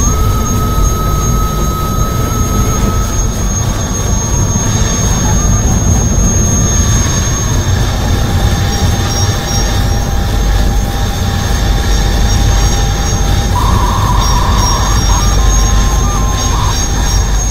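Loud, steady, deep rumbling drone with a few thin, high electronic tones held over it and a short buzzy tone a little before the end.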